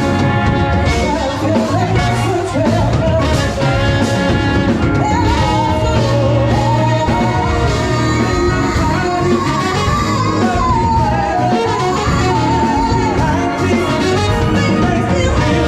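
A band playing with a lead singer: a sung melody line over steady bass and a regular beat.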